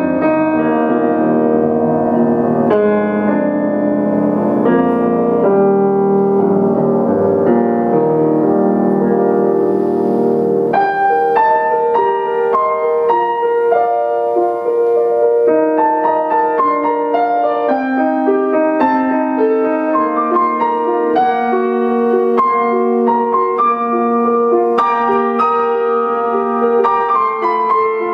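Grand piano played solo: full, sustained chords over a deep bass for about the first ten seconds, then the bass drops away and lighter, higher notes follow one after another.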